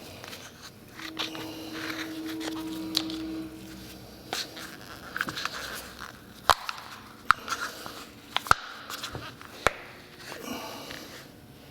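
A tool scraping and picking at hardened, dried-out plumber's putty in its container, with scattered sharp clicks and knocks. A steady low hum sounds for a couple of seconds near the start.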